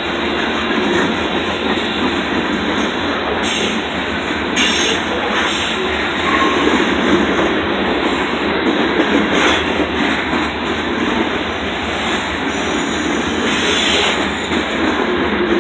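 Freight train of covered hopper cars rolling steadily past, its wheels rumbling and clattering on the rails; the sound turns briefly sharper and higher a few times.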